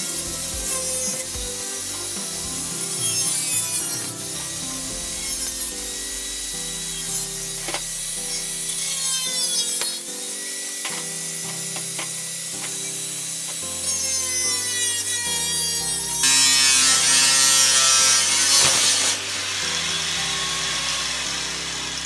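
Angle grinder with a thin cutting disc cutting through the sheet-metal side of a perforated cable tray: a harsh grinding hiss whose pitch slides up and down as the disc bites and eases off, loudest for a few seconds in the second half. Background music plays underneath.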